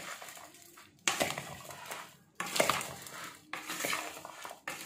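Chopped fruit chaat being tossed and mixed in a bowl, a utensil scraping and clinking against the bowl in three strokes: about a second in, about two and a half seconds in, and near the end.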